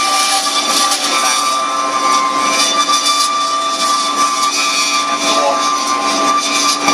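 Computerized metal-cutting band saw running: a steady machine sound with several held tones over a high hiss.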